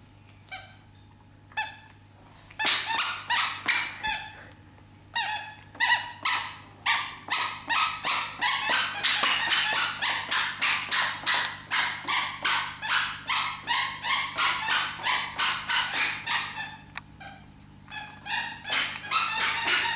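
Squeaker shoes squeaking with each step, a short high squeak about three times a second. The squeaking stops for about a second and a half near the end, then starts again.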